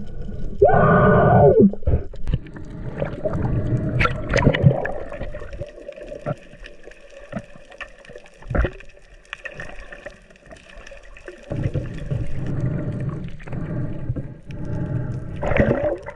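Underwater sound picked up through an action camera's housing: muffled water movement under a faint steady hum, a few sharp clicks, and a brief bending moan about a second in and again near the end.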